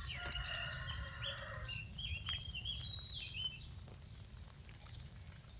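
A bird singing, a quick run of chirping notes during the first three seconds or so, over a steady low wind rumble on the microphone and a few light ticks.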